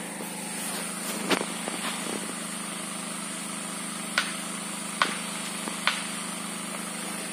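Diesel engine running steadily, a constant hum with a thin high whine over it, with four sharp clicks on top.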